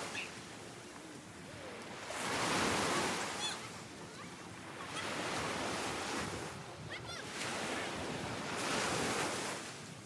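Ocean surf: waves breaking and washing up on a beach, swelling and fading every few seconds.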